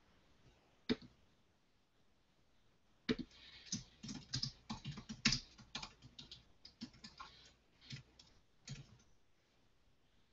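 Typing on a computer keyboard: one click about a second in, then a run of irregular key clicks for about six seconds.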